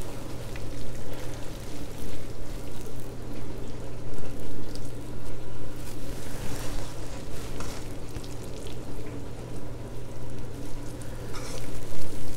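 Creamy fettuccine alfredo sizzling in a hot skillet while it is stirred and tossed with tongs, with soft scrapes and clicks against the pan, over a steady low hum.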